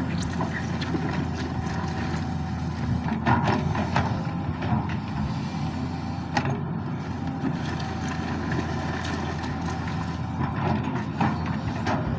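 Sany SY215C hydraulic excavator's diesel engine running steadily under work, with scattered short clanks and knocks from the machine as it shapes the pond.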